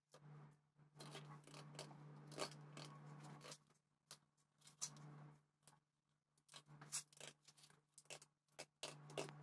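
Filleting knife cutting along a bass's backbone and ribs, with drawn-out slicing strokes and short clicks as the blade meets bone and the plastic chopping board.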